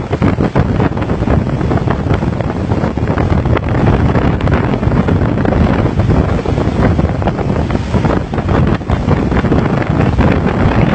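Storm wind buffeting the microphone in a loud, continuous rumble, with the rush of heavy seas underneath.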